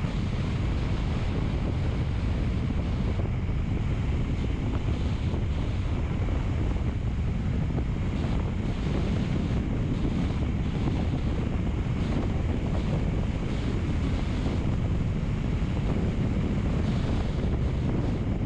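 Steady low rushing noise with no breaks: wind buffeting the microphone.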